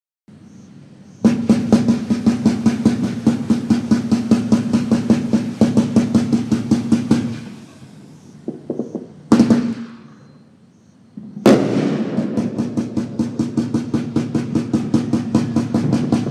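Black Cat 'Geared Up' 99-shot fireworks cake firing rapid volleys of comet shots, several sharp launch thumps a second. Partway through it pauses, with one loud single shot, then resumes its rapid firing.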